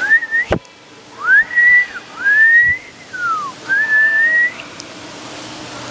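A run of about five clear whistled notes, each sliding up or down in pitch, with a sharp click about half a second in.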